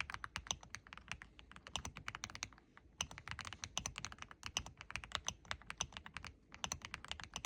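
Typing on an Aula F75 75% mechanical keyboard fitted with aftermarket keycaps: a quick, steady run of keystrokes, with brief pauses about two and a half seconds in and again near the end.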